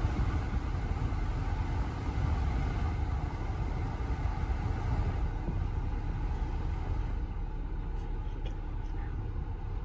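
Blower fan of a 2008 GMC Acadia's climate system rushing air out of the dash vent over a low engine-idle rumble, winding down as the fan is turned to its lowest speed; the hiss fades over the second half. The speeds changing shows the newly replaced blower motor resistor working.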